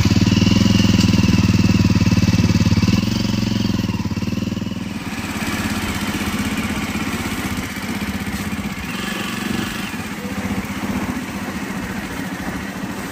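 Jawa 42 Bobber's single-cylinder engine running just after starting, loudest for the first few seconds, then settling to a steadier, quieter idle about five seconds in.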